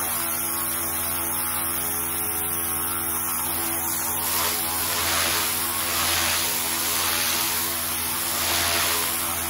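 Pressure washer running with a steady motor hum, its jet hissing on roller-shutter slats; from about four seconds in the spray hiss swells and fades every second or so as the lance sweeps back and forth.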